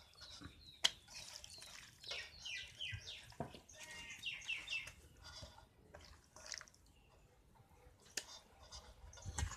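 Wet squelching and small clicks of marinated chicken pieces being pushed by hand into a green bamboo tube, with one sharp click about a second in. A bird chirps in quick repeated falling notes from about two to five seconds in.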